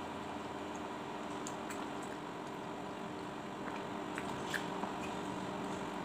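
Quiet eating of rice porridge: a plastic spoon scooping in a plastic bowl and soft wet mouth and chewing sounds, heard as a few faint clicks over a steady room hum.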